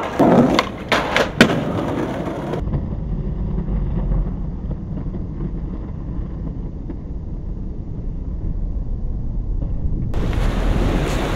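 A few sharp knocks of a skateboard clattering on stone ground after a bail, then a steady low rumble of wind on the microphone.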